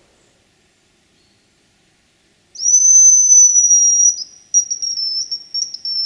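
Hazel grouse decoy whistle blown to imitate the bird's song: one long, thin, very high whistle, falling slightly, then a string of short broken notes.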